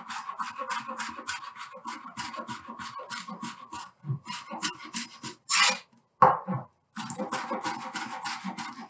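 A chef's knife rapidly dicing raw trout fillet on a plastic chopping board: quick, even strokes about five a second, with a short break about six seconds in.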